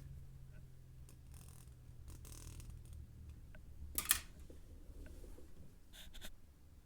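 The JBL Pulse 2's low bass test tone dies away in the first seconds, leaving faint scrapes and a few clicks, the loudest a sharp click about four seconds in.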